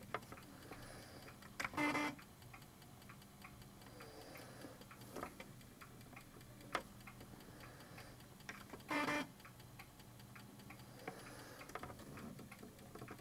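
Amiga 3.5-inch floppy drive working through a continuous head-calibration read while its head stepper motor is turned by hand to shift the track alignment, with faint ticking throughout. Two short, louder buzzes come about two seconds in and about nine seconds in. The test finds no readable sectors (0/11 on both sides): the head is off track.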